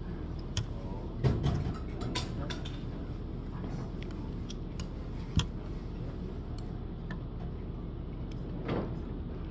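Eating utensils clicking and clinking against dishes: a few quick knocks in the first two seconds, a single sharp one about halfway, over a steady low background hum.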